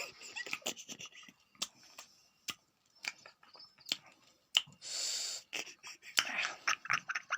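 A sleeping person snoring with wheezy breaths, one long breathy rasp about five seconds in, among scattered small clicks.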